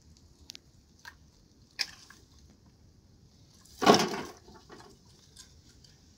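A few light knocks of wood, then a loud, brief clatter of dry sticks as they are gathered up by hand about four seconds in.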